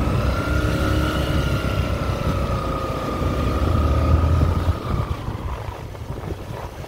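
Crossfire 250 motorcycle engine running while riding along a street, with a strong low rumble and a steady high whine. Both ease off and the sound drops about four and a half seconds in.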